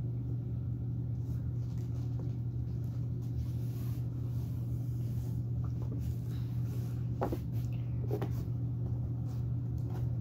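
A steady low hum, with a few faint brief sounds about seven and eight seconds in.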